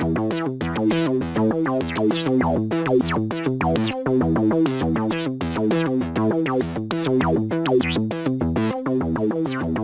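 Electronic synthesizer pattern playing back in FL Studio 11: a fast, busy sequence of short synth notes, some with quick falling sweeps, over a steady repeating rhythm, in an IDM/acid style.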